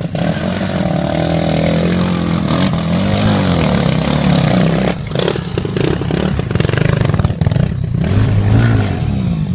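Several enduro dirt bike engines running at once, idling and revving, their pitch rising and falling. A sharp knock about halfway through.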